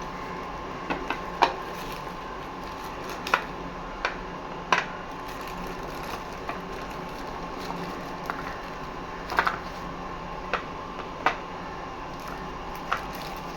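About a dozen light, scattered clicks and taps, small hard items knocking together as they are handled, the sharpest about a second and a half in, over a steady faint hum.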